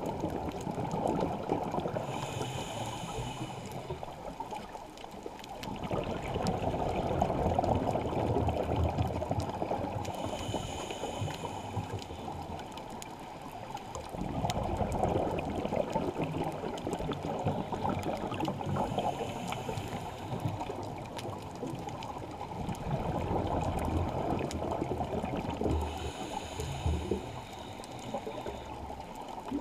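Scuba regulator breathing underwater: four slow breaths, each a short hissing inhale through the regulator followed by several seconds of bubbling exhaust bubbles.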